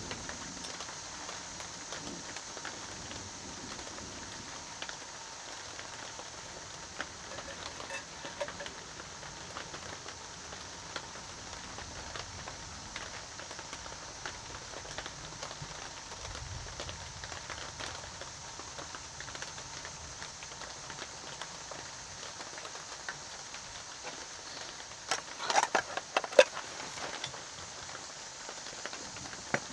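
Steady rain falling, an even hiss. Near the end comes a brief cluster of sharp knocks or cracks, louder than the rain.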